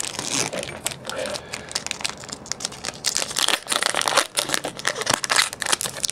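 A Pokémon trading card booster pack's wrapper being crinkled and torn open, with a continuous crackling rustle of dense clicks.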